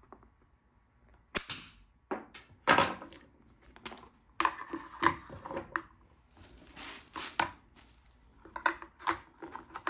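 Flush cutters snip a plastic tab with one sharp click about a second in, followed by irregular plastic clicks, clacks and knocks as a clear plastic container and its parts are handled and set down on a wooden table.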